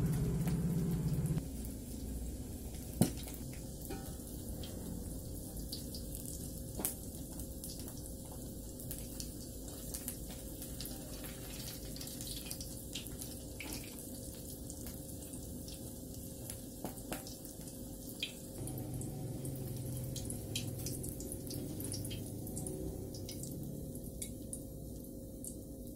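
Small fish deep-frying in a wok of hot oil: a steady sizzle with scattered pops and crackles. A low hum sits under it at the start and again over the last third.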